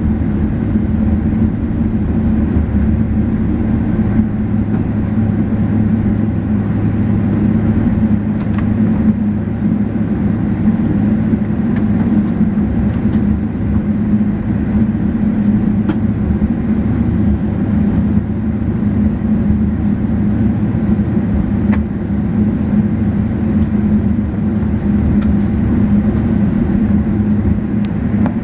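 Cabin noise inside a Boeing 777-300ER on the ground after landing: a steady low rumble from the engines and the wheels rolling, with a few faint ticks and rattles scattered through it.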